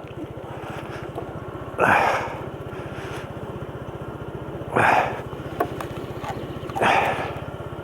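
125cc motor scooter engine idling steadily with an even low pulse. Three short rustling or scraping bursts come over it, about two, five and seven seconds in.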